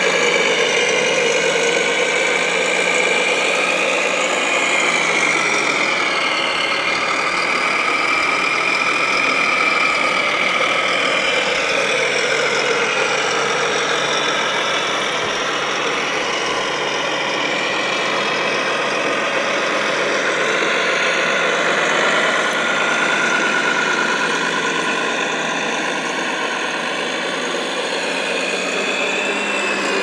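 Radio-controlled model construction trucks running, a scale Volvo A45G articulated hauler among them. The sound is a steady engine-like drone layered with whining tones that slowly fall and rise in pitch as the models drive.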